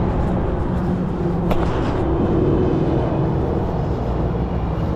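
Strong wind buffeting the microphone outdoors: a steady, loud low rumble.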